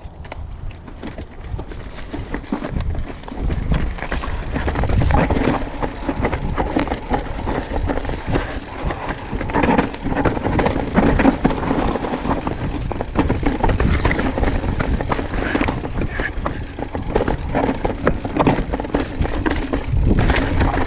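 Mountain bike riding down a rocky technical trail: a low rumble of tyres rolling over rock, with many rattling clicks and knocks from the bike bouncing over the rocks. It builds over the first few seconds as the bike picks up speed.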